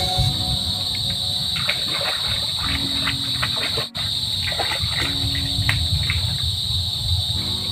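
Steady high-pitched drone of insects, with low sloshing of water as someone wades through a shallow creek. The sound drops out for an instant about halfway through.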